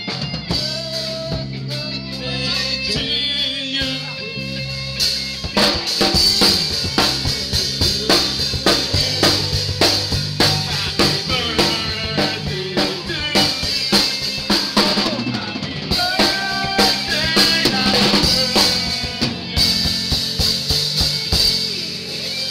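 Live rock band playing through amplifiers: a drum kit with snare, rimshots and bass drum over electric guitar and bass guitar. The drumming gets louder and busier about five seconds in.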